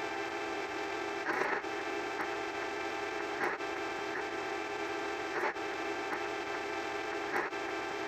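A steady buzzing electronic hum with many overtones, broken by short brighter swells every one to two seconds.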